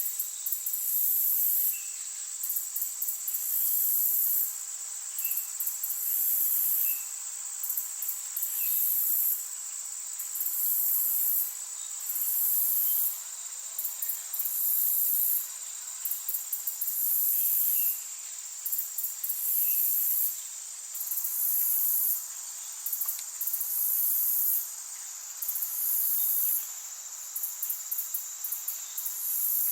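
Insects singing: a very high-pitched trill that comes in repeated bouts of a second or two with short gaps, over a steady high hiss.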